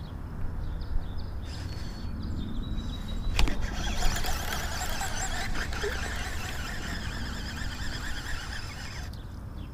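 Baitcasting fishing reel: a sharp click about three and a half seconds in as the cast is let go, then a steady whirring hiss of the spinning spool and running line for about five seconds, over a low rumble of wind on the microphone.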